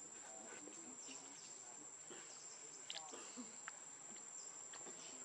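Insects droning steadily at one high pitch in the forest background, faint, with a few soft short calls and clicks over it.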